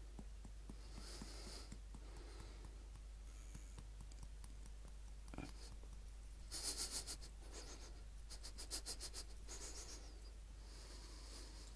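Ground nutmeg shaken from its container over soup: two short runs of quick shakes a little past the middle, with softer rustling between and a low steady hum.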